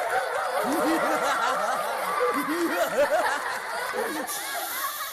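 Many voices laughing and giggling together, overlapping short bursts of laughter that fade out about five seconds in.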